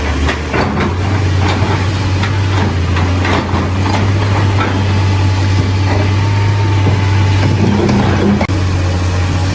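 Excavator's diesel engine running with a steady low hum, with many short knocks and clanks in the first half and a single knock near the end.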